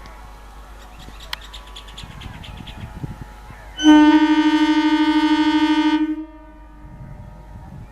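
Electric multiple unit (EMU) local train's horn sounding one steady blast of a little over two seconds about halfway through, over the low rumble of the train.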